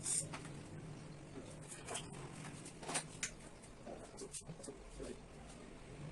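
Faint, scattered clicks and light taps of hands working on parts, over a low steady hum.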